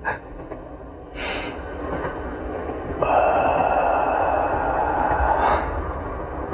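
A wounded man's short gasping breaths, then about three seconds in a loud steady rushing noise with a faint high whine starts suddenly and dies away a couple of seconds later.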